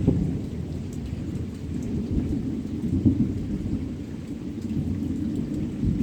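Thunder rumbling, swelling and fading over several seconds, with steady rain falling.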